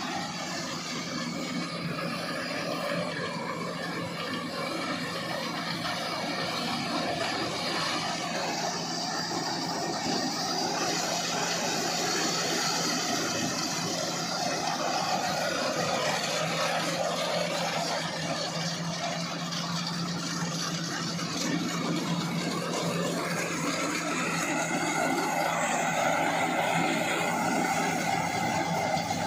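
Rice harvester's engine running steadily under load, with a constant low hum and a noisy mechanical clatter that swells a little now and then.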